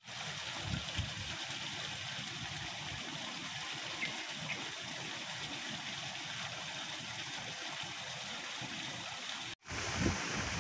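Steady rushing outdoor noise with occasional low rumbles. It is broken by a brief dropout near the end, after which a louder low rumble starts.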